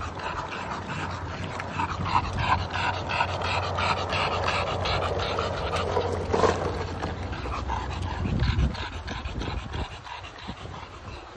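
English bulldog panting rapidly and heavily, over the low rumble of skateboard wheels rolling on asphalt; both fade about nine seconds in.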